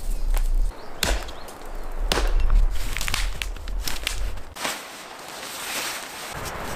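Hatchet chopping at a dead branch: sharp blows about a second apart, followed by quicker, lighter cracks, over a low rumble.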